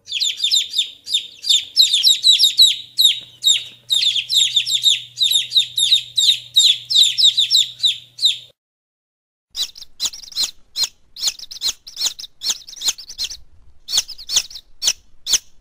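Baby chicks peeping: a dense run of rapid, high, falling peeps for about eight seconds, then after a brief break, sparser single peeps about two a second.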